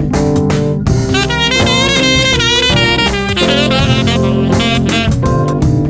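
Instrumental break of a band song: drums and backing chords under a lead melody line played with a wavering vibrato.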